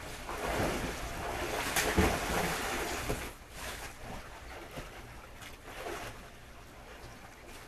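Pool water splashing and sloshing as two people wade and swim, busiest in the first three seconds with a sharper splash about two seconds in, then settling to quieter lapping.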